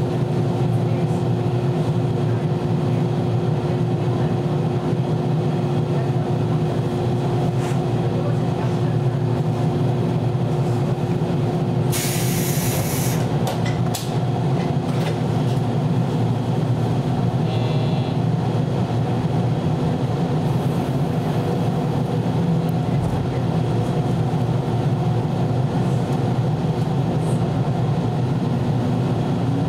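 413 series electric multiple unit heard from the driving cab: a steady low rumble and hum. A short hiss of air comes about twelve seconds in, a brief high tone a little later, and a rising whine starts near the end.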